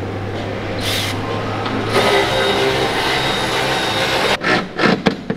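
A steady machine hum, joined about two seconds in by a louder whirring of several steady pitches. Near the end come a few quick clunks and knocks.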